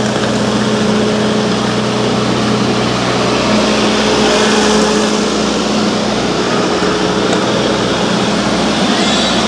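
An engine running steadily, a constant low hum over a continuous wash of street noise.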